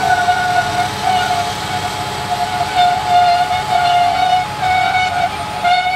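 Farm tractor running while pulling a corn planter, a steady high whine sitting over the engine's low rumble.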